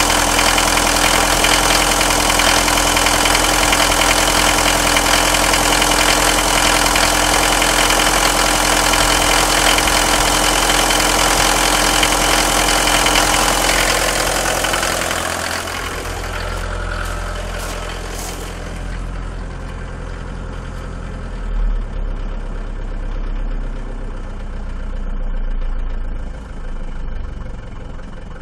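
An old car's inline engine idling steadily after a cold start in freezing weather. It is loud and close for the first half, then quieter and muffled from about halfway, heard from inside the car's cabin.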